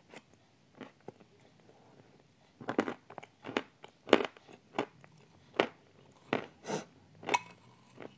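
Close-miked mouth sounds of someone chewing a spoonful of creamy dessert mixed with crunchy bits. It is quiet at first, then about two and a half seconds in comes a run of about ten sharp crunches, roughly two a second.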